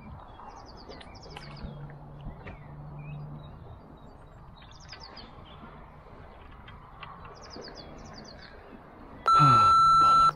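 Small birds chirping in short repeated trills. About nine seconds in, a loud steady censor bleep tone lasting about a second covers a swear word.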